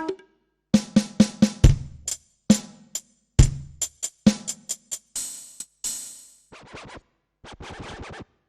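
Electronic drum kit voices from a dbdrums db10 V3 drum module: quick runs of snare hits with two deep kick drum hits, two cymbal crashes near the middle, then a few lighter, scattered hits near the end.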